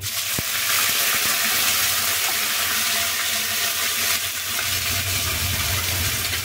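Wet masala paste hitting hot oil in a kadhai: a loud frying sizzle that starts suddenly and holds steady as the paste is poured and scraped in.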